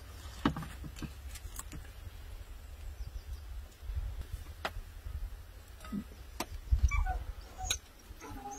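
Metal serving tongs clicking against plates and the serving pan, several sharp separate clinks a second or more apart, over a low wind rumble on the microphone.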